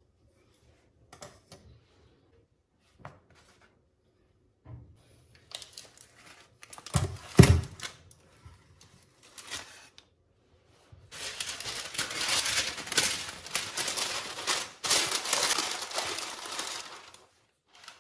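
Kitchen handling noises: scattered light clicks and knocks, a heavier thud about seven seconds in, then about six seconds of continuous rustling handling noise.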